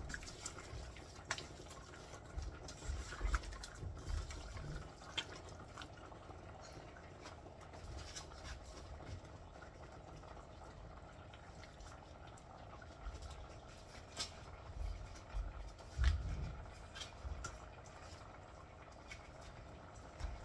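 Cream of mushroom soup, chicken broth and seasonings being stirred in a pressure cooker pot. A wet, sloppy stirring sound comes with scattered clicks and a few soft knocks of the utensil against the pot, the loudest about 3 and 16 seconds in.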